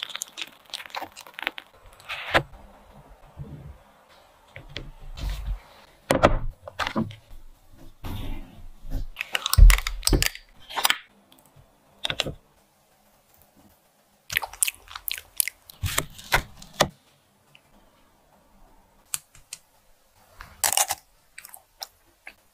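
A metal spoon scraping and scooping through firm chocolate ice cream in a glass dish, and bites crunching through the hard chocolate coating of an ice cream bar. The crunches come in irregular clusters with short pauses between them, with a loud cluster of crunches near the end.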